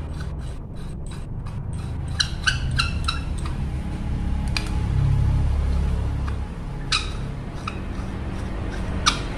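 Small metal hardware (steel bolts, nuts and bearings) clicking and clinking as it is handled and fitted into plastic parts by hand. A quick run of about five sharp clinks comes two to three seconds in, then single clicks now and then, over a low steady hum.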